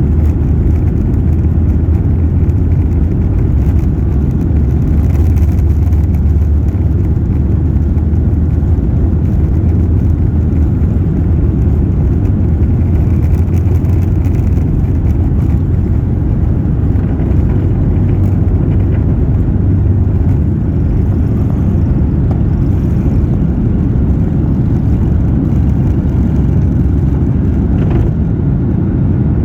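Steady low drone of a Boeing 737-800's engines and airflow heard inside the passenger cabin, with no change in pitch or level.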